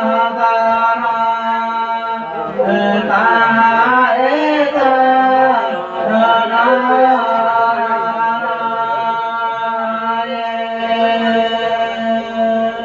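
Slow, chant-like group singing by women with long held notes, a bowed fiddle playing along underneath.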